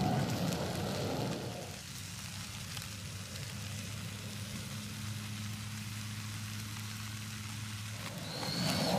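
Food sizzling on a charcoal grill, a steady crackle and hiss, with a steady low hum underneath through the middle of the stretch.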